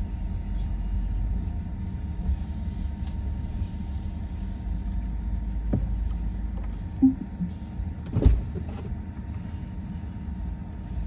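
Steady low engine and road rumble heard inside a car's cabin as the car moves and then stands. A sharp click comes near six seconds in, and a louder thump comes a little after eight seconds.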